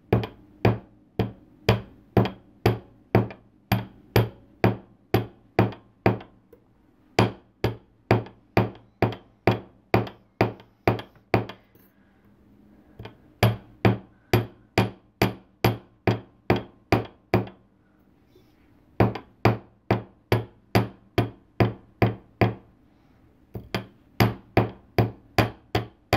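Jeweler's chasing hammer peening copper wire on a steel bench block: light, even taps from the ball end, about two to three a second, in runs broken by short pauses.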